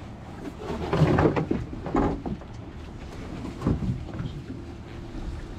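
Irregular knocks and thuds of work aboard a small fishing boat as a trap net is hauled in by hand, over a steady low rumble.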